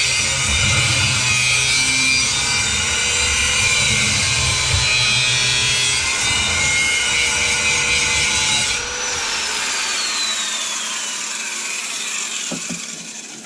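Small power tool cutting through a metal fuel-control rack tube, a steady harsh grinding noise. About nine seconds in it is switched off and its whine falls away as it spins down.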